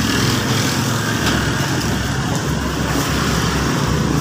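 A motor engine running steadily close by, a low even rumble that holds unchanged throughout.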